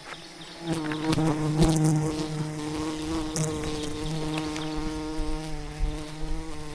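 Wild honeybees buzzing in a steady drone that starts and gets louder about a second in.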